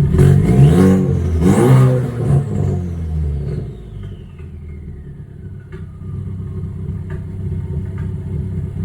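Ford Focus four-cylinder engine revved twice in quick blips, then dropping back to a steady idle while a high whine falls away. The engine is misfiring, with a misfire logged on cylinder 3.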